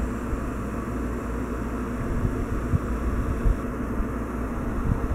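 A steady low rumble of background noise, with a few faint knocks as the camera is handled.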